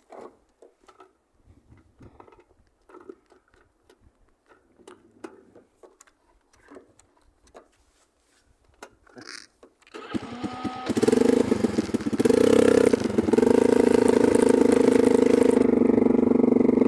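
Light clicks and knocks, then about ten seconds in an engine starts and runs steadily, with a brief rise and fall in speed soon after starting.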